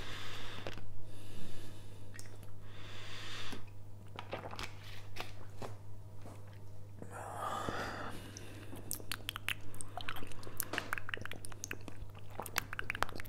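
Close-miked ASMR mouth sounds: wet smacks and clicks, a scattered few at first and then coming thick and fast over the last few seconds, over a steady low hum.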